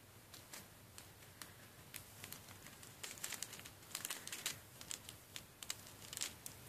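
Faint crinkling and light clicking of a small plastic bag of nail-art spangles being handled, sparse at first and busier from about halfway in.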